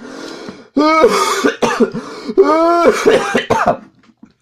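A person in a hard coughing fit, with two loud runs of coughs.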